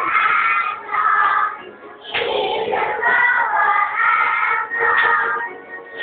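Young children singing a song along with music, in phrases with a short break about two seconds in.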